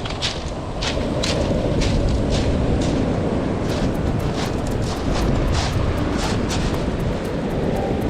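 Heavy typhoon surf on a pebble beach: a steady low rumble of breaking waves with wind buffeting the microphone, and many sharp clicks of stones rattling in the surf. The clicks come thicker from about three and a half seconds in.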